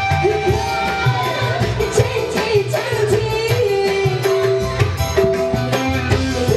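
Live dangdut band music: a woman singing held, wavering notes into a microphone over a hand-drum rhythm and bass.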